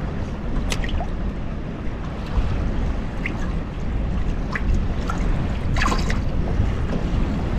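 Wind rumbling on the microphone in an open boat, with light water lapping at the hull and a few faint short taps.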